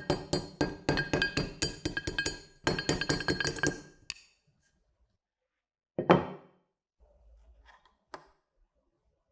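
Rapid clinking of small hard objects, many quick ringing strikes in a row for about four seconds, then a pause and a single louder knock about six seconds in, with a faint rustle and a light click near the end.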